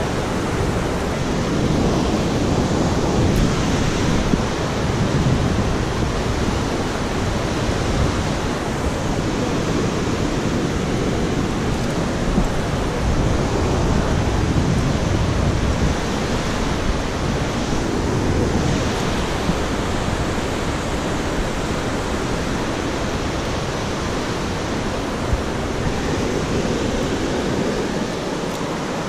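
Steady rushing of a mountain creek: an even hiss that holds level throughout, with a few brief ticks.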